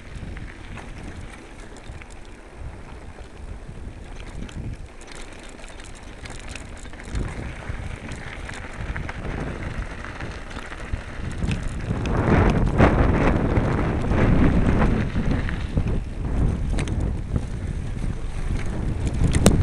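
Wind buffeting the microphone of a moving camera, with rumble and rattle from travel over a rough dirt-and-gravel track. It gets louder and rougher about twelve seconds in.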